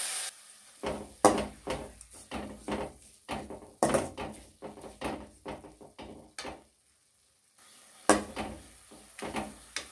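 Metal spatula scraping and knocking against a metal kadai as wet grated carrot is stirred: a quick run of scrapes and taps, a short pause, then a few more near the end.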